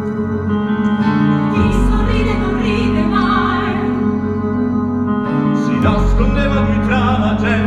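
A live theatre orchestra plays sustained chords while a voice sings over it with vibrato: a musical-theatre song in performance.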